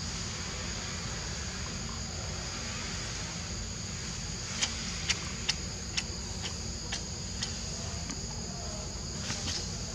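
A steady chorus of insects, buzzing on two high tones. Partway through comes a run of sharp clicks, about two a second for roughly three seconds, and two or three more near the end.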